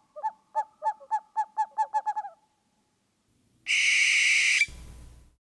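An owl calling: a series of about a dozen short hoots that come faster and faster and run together over two seconds or so. Later a loud, high, steady tone sounds for about a second and cuts off sharply, followed by a short, faint hum.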